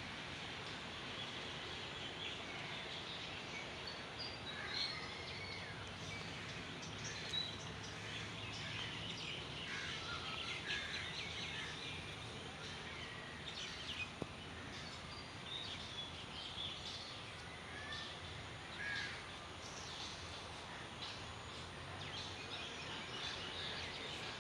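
Many short bird chirps and calls scattered throughout, over a steady outdoor background hiss.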